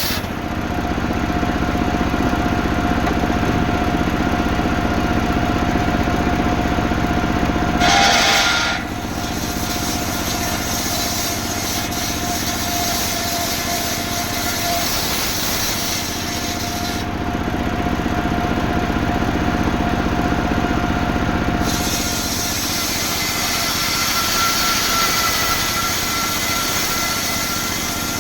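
Chainsaw engine running steadily under load, sawing through a coconut palm trunk, with a brief louder surge about eight seconds in.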